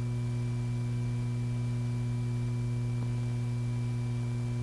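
Steady low electrical hum with fainter higher overtones and light hiss: background hum on an old film soundtrack between lines of narration.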